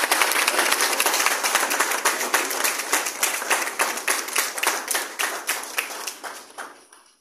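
Audience applauding. The clapping is dense at first, then thins out and fades away near the end.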